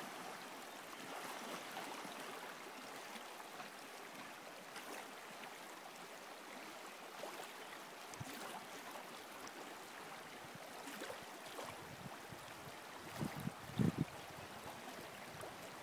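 Steady noise of a river's current flowing through shallow, rippled water, with two brief low bumps near the end.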